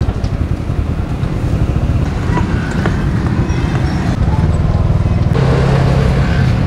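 Low, rattling rumble of a glass-cased street-food pushcart rolling on its spoked wheels over concrete, with street traffic around it. About five seconds in it gives way to a steadier hum.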